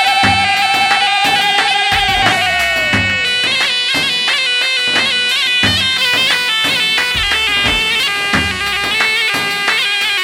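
Loud wedding music: a reedy wind-instrument melody over regular drum beats, opening with a long wavering held note that slides down about three seconds in.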